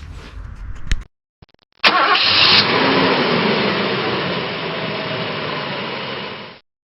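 Holden VL Turbo Commodore's turbocharged straight-six starting: a loud burst as it catches about two seconds in, then running steadily before cutting off abruptly.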